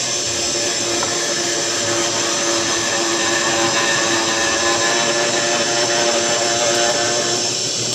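Electric mortising machine running steadily with a constant motor whine while it cuts a mortise into wood.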